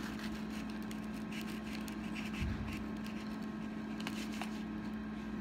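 A table knife sawing through a toasted whole-grain sandwich, with faint crunching, scraping strokes and a soft thump about halfway through. A steady low hum runs underneath.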